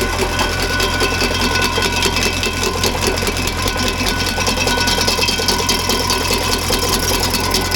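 Tractor-driven stump grinder's 24-inch carbide-toothed disc cutting into a stump, a dense, rapid chatter of teeth chipping wood over the steady hum of the tractor engine.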